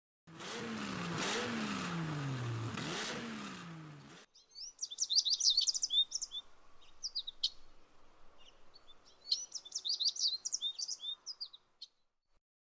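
A car engine, presumably the 911's air-cooled flat-six, runs with its note falling several times before it cuts off abruptly. Birds then sing in two bursts of quick, high chirps.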